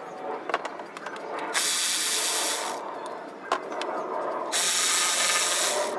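Cordless electric ratchet run in two short bursts of about a second each, loosening transmission pan bolts, with clicks and knocks of metal tools handled in between.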